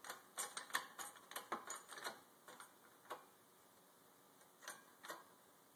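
Faint light metallic clicks as a shop press is worked to press a cap piece and water pump seal into an aluminium pump housing through a socket, several a second at first, then only a few scattered ticks after about three seconds.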